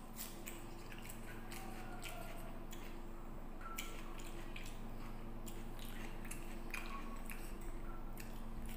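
Eating by hand with the mouth close to the microphone: wet, squishy chewing and lip smacks as rice and curry are mixed with the fingers and eaten, heard as irregular sharp clicks. A steady low hum runs underneath.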